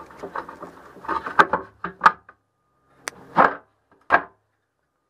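Cover boards being slid into the slots of an outboard well around the motor's shaft: a run of scraping and small knocks, then two louder knocks about three and a half and four seconds in.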